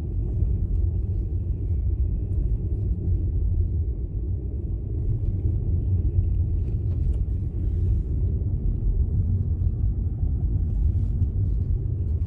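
Steady low rumble of a car driving on a snow-packed road, heard from inside the cabin: tyre and road noise.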